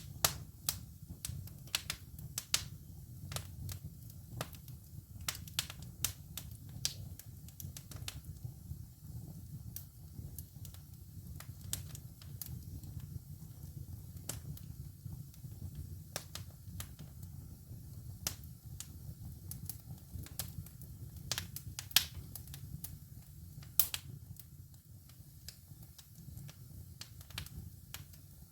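Wood fire burning in a fireplace, crackling with irregular sharp pops over a low steady rumble of the flames. A few pops stand out louder than the rest.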